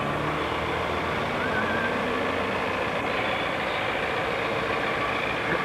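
Motor vehicle engine running steadily, an even low hum under a constant rush of noise.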